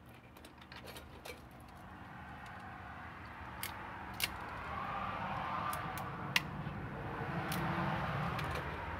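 Sharp, scattered clicks and snips of a handheld RJ45 crimp tool and the stiff ethernet wire ends being handled and trimmed, the loudest about four and six seconds in. Under them, a background rumble grows steadily louder.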